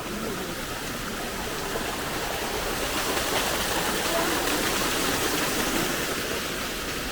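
Steady rush of flowing water, a monsoon stream or waterfall running over rocks.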